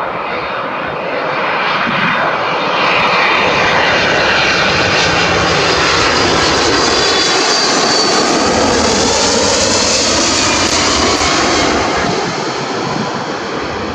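Boeing 767-300 freighter's twin jet engines on final approach, flying close past: a loud, steady jet noise that swells about three seconds in, with tones that slide down in pitch as the aircraft goes by, then eases near the end as it flares over the runway.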